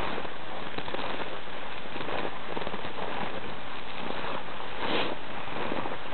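Footsteps of a person and dogs tramping through deep new snow, uneven soft steps over a steady hiss.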